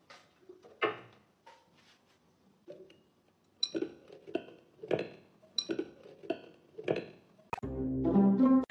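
A series of light clinks and knocks with a short ringing tone, about two a second in the middle stretch. Near the end a loud pitched sound takes over for about a second.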